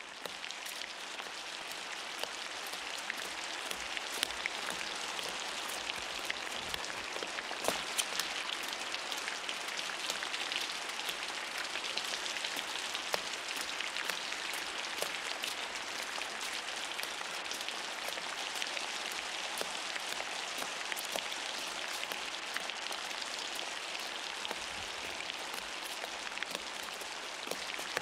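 Steady heavy rain pattering on wet paving and ground, with many separate drops and splashes ticking through it.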